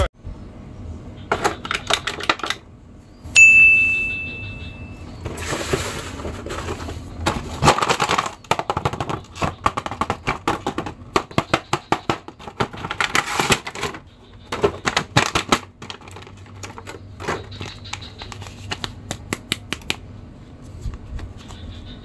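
Stiff plastic blister packaging crinkling and clicking as an action figure is worked out of its pack, in many quick bursts of rustling and sharp clicks. A single bright ding sounds about three and a half seconds in and fades away.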